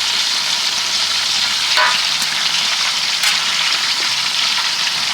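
Chunks of beef on the bone sizzling in a large pot: a steady, even hiss, with a couple of brief clicks about two and three seconds in.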